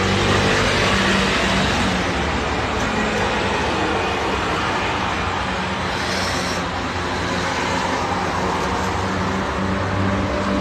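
Steady road traffic noise, a constant rush with a low engine hum underneath, with a brief high hiss about six seconds in.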